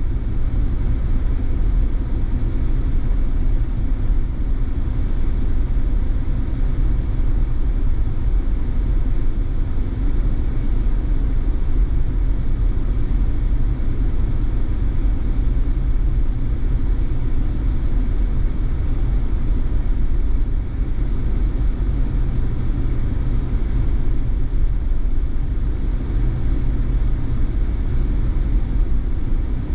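A car driving along the road: a steady, even low rumble of road and engine noise.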